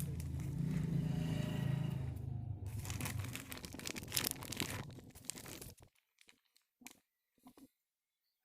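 Rustling and crinkling of a packet of wheat flour being handled and emptied into the bait mix for about six seconds, then a few faint clicks.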